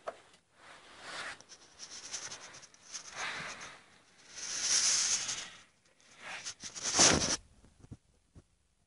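Rustling, scraping rubs in about five swells, loudest around the middle and near the end, like a camera being handled and brushed against surfaces.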